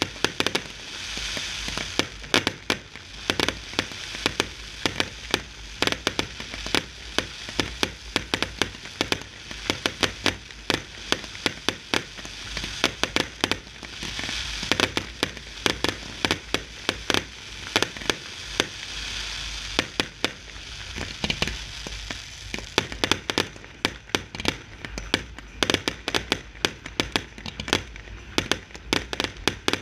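Fireworks display at close range: a rapid, irregular run of sharp bangs and cracks from bursting shells and comets, over a hiss from ground fountains spraying sparks. The hiss swells and fades a few times while the bangs go on throughout.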